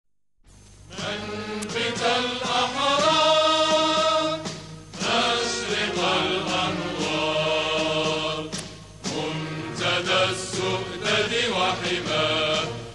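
Chanted vocal music: long, drawn-out melodic phrases with held and sliding notes, broken by short pauses about four and a half and nine seconds in.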